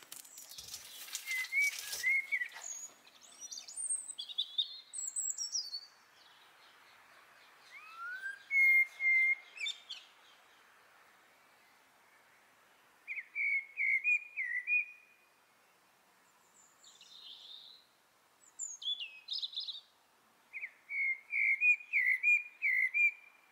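Small birds singing: short phrases of quick chirps and whistled notes, repeated with pauses between them. In the first two seconds there is a brief rustle as a small dog runs close past.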